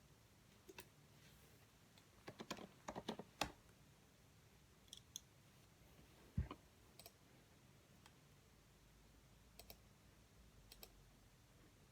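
Faint, scattered clicks and taps over near silence, with a quick run of them about two to three and a half seconds in and a single low knock around six seconds in.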